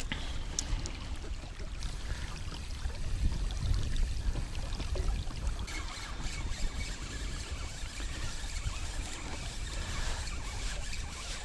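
River water lapping and trickling against an inflatable boat's hull, with a steady low wind rumble on the microphone; the splashing grows brighter about halfway through.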